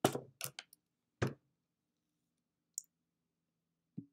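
A handful of sharp clicks in the first second and a half, then two fainter single clicks later on, with silence between them.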